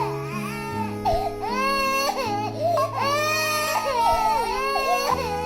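A kitten crying in distress: a run of long, high, wavering wails like a baby's cry, over background music with sustained low notes.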